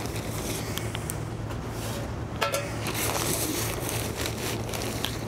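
Bark-based potting soil being poured into a high-fired clay pot: a gritty rustle with scattered small clicks, over a steady low hum.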